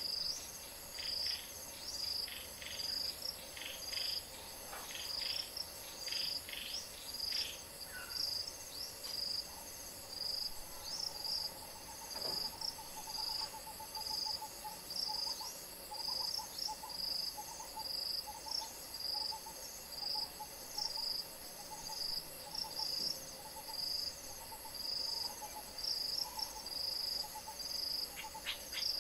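Insects chirping in a steady, pulsing chorus. A few short bird chirps come in the first several seconds, and a lower repeated call starts about halfway through.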